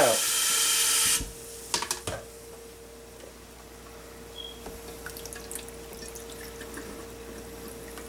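Tap water running into a sink, shut off abruptly about a second in, followed by two light knocks. After that, faint drips and a steady low hum.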